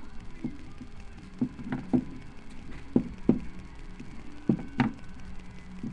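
About eight light knocks and taps at irregular spacing: plastic toys being handled and bumped.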